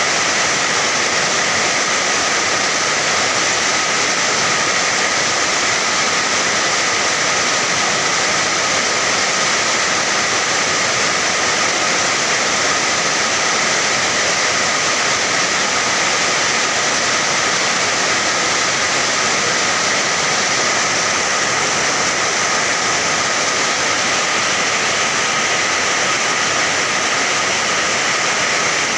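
Steady heavy rain: a dense, even hiss with no single drops, gusts or thunder standing out.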